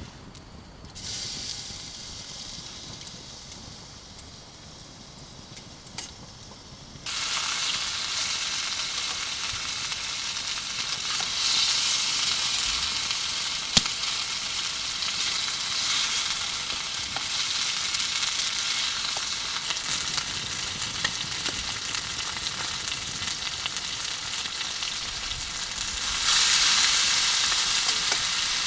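Food sizzling as it fries in oil in a pan. The sizzle starts softly about a second in, jumps much louder a few seconds later and swells again near the end, with a couple of sharp clinks along the way.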